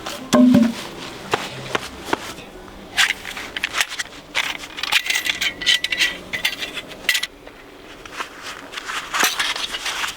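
Irregular knocks, clicks and scrapes of wood and camp gear being handled, busiest in the middle.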